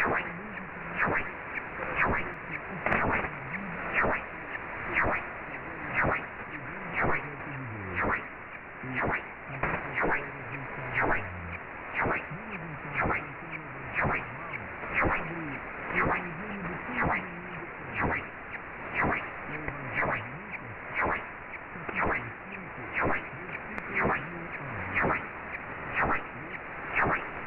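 Shortwave receiver tuned to 4784.99 kHz (presumed Rádio Caiari) playing a weak AM broadcast buried in static hiss, with faint programme audio underneath. Sharp static clicks come about once a second throughout.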